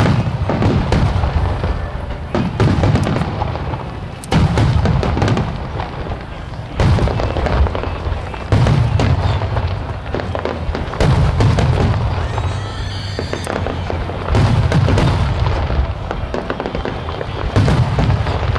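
Aerial firework shells from a starmine display bursting in quick succession: a deep boom every two seconds or so, about eight in all, with crackling and rumble between them.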